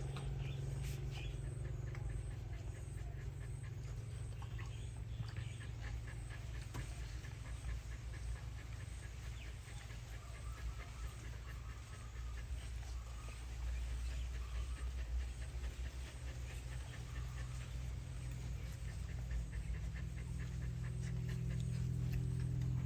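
A sleeping puppy breathing in quick, even breaths, over a steady low hum.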